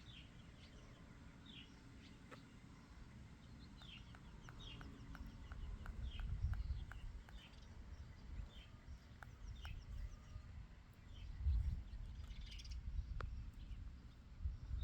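Birds chirping: repeated short high chirps, each falling in pitch, about one a second, over an uneven low rumble.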